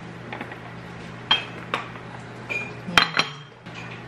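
Cutlery clinking and scraping against a dish while cake is cut and scooped: several sharp clinks, a few ringing briefly, over a steady low hum.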